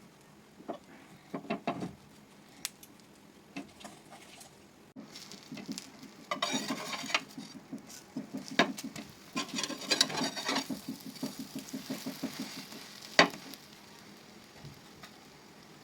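Food sizzling as it fries in a pan, with a spatula scraping and stirring in two bursts and a few sharp taps on the pan, the loudest near the end.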